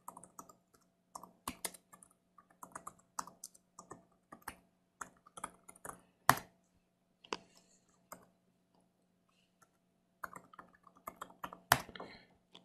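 Typing on a computer keyboard: irregular key clicks with a harder keystroke about six seconds in, a pause of about two seconds, then another quick run of keystrokes ending in a loud strike near the end.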